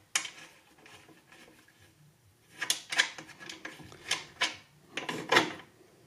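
Upper blade guide assembly of a Delta 9-inch bandsaw being worked side to side by hand, giving a few short clicks and scrapes as it shifts. The sound comes from play in the assembly when its lock is loose.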